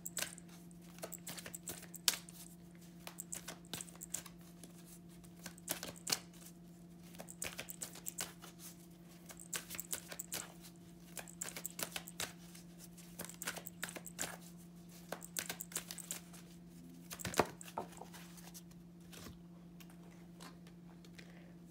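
A deck of oracle cards being shuffled and handled by hand: a long run of irregular soft flicks and slaps of card against card, with a few louder ones.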